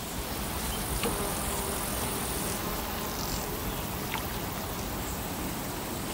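Steady lakeside ambience: an even wash of water and wind in the trees.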